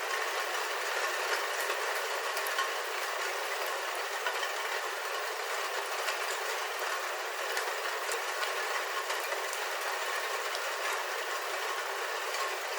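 Rain falling on a roof, heard from inside: a steady, even patter with scattered individual drop ticks.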